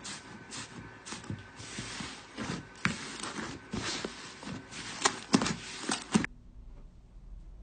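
Slime being squeezed and pressed by hand, giving a run of irregular wet clicks and pops, with a few sharper pops near the end before it cuts off suddenly.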